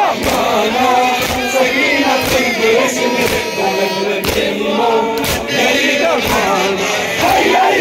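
Crowd of men chanting a Muharram mourning lament in unison, with hands slapping on bare chests about once a second in group matam.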